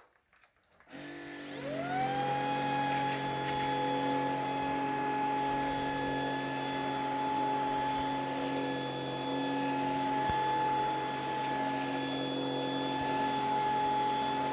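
Vacuum cleaner switched on about a second in, its motor spinning up in a rising whine and then running steadily.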